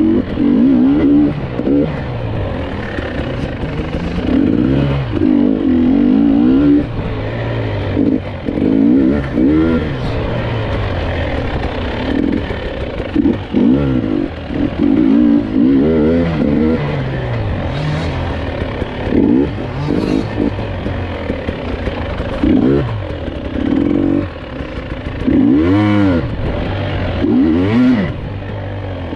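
GasGas EC 300 two-stroke enduro motorcycle engine under way, revving up and dropping back over and over as the throttle is opened and closed. Occasional clatter from the bike over rough ground.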